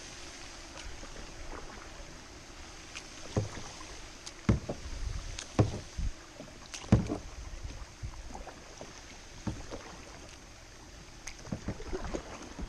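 Kayak paddling on calm river water: irregular splashes of the paddle blade and sharp knocks, busiest in the middle and again near the end, over a steady low wash of water.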